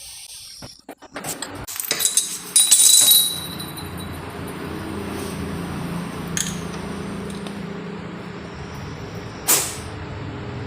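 Metal tools and engine parts clinking and knocking as they are handled, in a quick cluster about one to three seconds in and once more near the end. A steady low hum runs underneath from a few seconds in.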